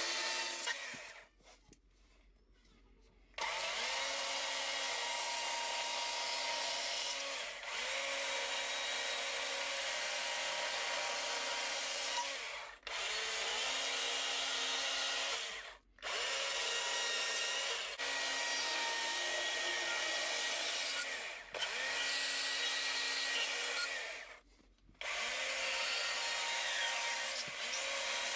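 Chainsaw cutting into a block of wood in runs of several seconds, its pitch dipping as it loads up in the cut. It drops away for about two seconds near the start, and briefly three more times between cuts.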